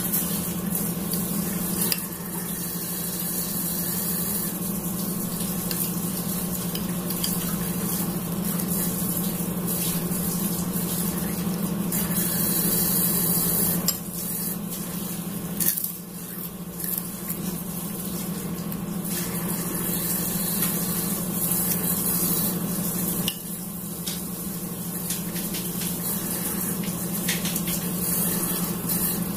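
Metal spoon stirring, scraping and clinking against a ceramic bowl of curry, with a few sharp clinks, over a steady hiss and low hum.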